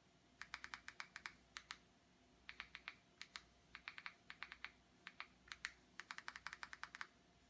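Clicking of an Amazon Fire TV remote's buttons, in quick runs of several presses with short pauses between, as a search word is entered letter by letter on the on-screen keyboard.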